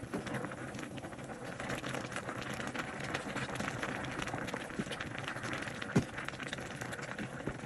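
A pot of soup at a rolling boil: a steady bubbling and crackling while tongs push the vegetables around. One sharp knock about six seconds in.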